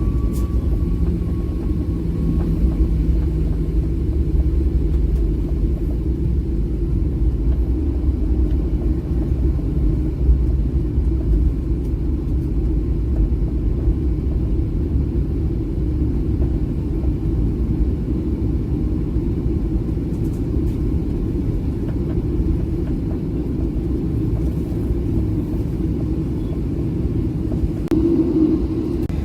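Steady low rumble inside the cabin of a Boeing 737-700 on its arrival, from the engines, the airflow and the airframe, with no distinct events.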